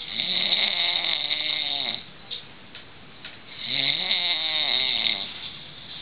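A sleeping man snoring loudly: two long snores, each lasting about a second and a half, with a pause of about a second and a half between them.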